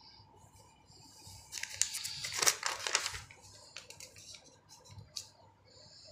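A notebook page being turned by hand: paper rustling and crinkling, loudest about two and a half seconds in, then a few faint paper ticks.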